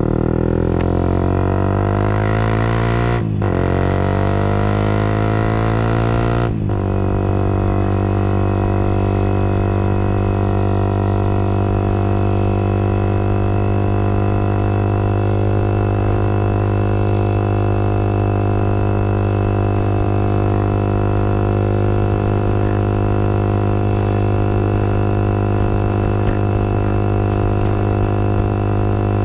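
Motorcycle engine pulling away and accelerating, its pitch rising, with a brief break for an upshift about three seconds in and another at about six and a half seconds, then running at a steady pitch while cruising.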